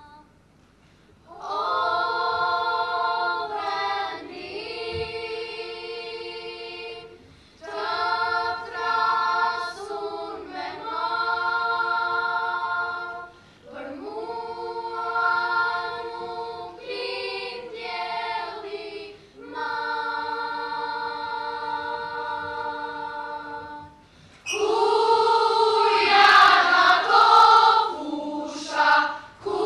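A school children's choir singing in long held phrases with short breaks between them, louder over the last five seconds.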